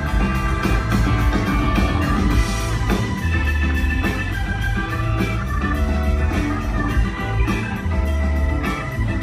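Live rock band playing at full volume: electric guitars with drums and bass, amplified through the venue's PA.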